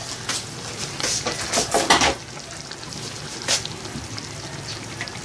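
Ground beef sautéing in oil in a large aluminium pot, a low steady sizzle, broken by a few short clatters and knocks of handling, the loudest about two seconds in.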